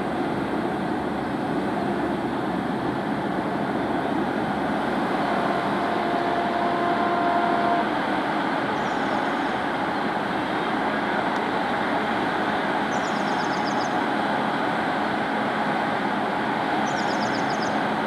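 Steady rumble and hiss of trains as an ALCO WDM-3A diesel locomotive approaches on the adjacent line, with a faint brief tone about halfway through and three short high chirps in the second half.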